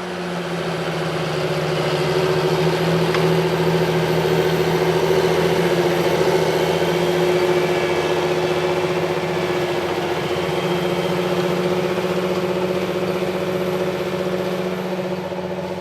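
John Deere 8530 tractor's diesel engine working steadily under load pulling a subsoiler, a constant-pitch drone with a thin high whine. It swells up over the first couple of seconds and fades away near the end.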